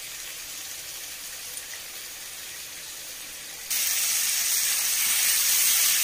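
Ridge gourd pieces frying in hot mustard oil in a kadai, a steady sizzle that turns suddenly louder about four seconds in.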